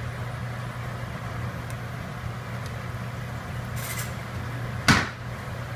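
Steady low hum of kitchen appliances over a stovetop, with a single sharp knock just before five seconds in.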